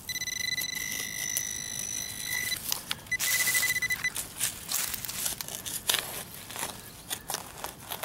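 Metal detector pinpointer sounding a steady high beep for about two and a half seconds, then a fast pulsing beep for about a second as it is worked over a target in the hole. Between and after the beeps come scrapes and crunches of soil being dug and pushed around by hand.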